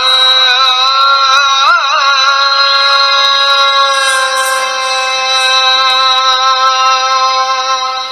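Recorded devotional music accompanying a classical Indian dance: a high singing voice sings a short ornamented phrase, then holds one long steady note that begins to fade near the end.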